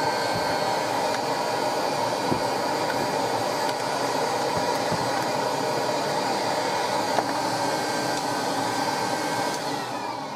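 Old cylinder vacuum cleaner running steadily, sucking dust and fluff out of a small electric motor through its hose nozzle. Near the end it is switched off and its motor winds down with a falling whine.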